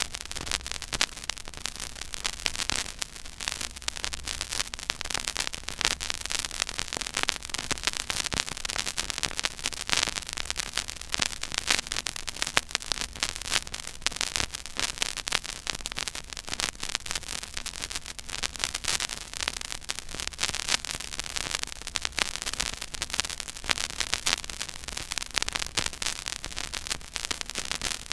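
Stylus tracking the silent groove of a 12-inch vinyl record: dense surface crackle and pops over a steady hiss, with a faint low rumble or hum.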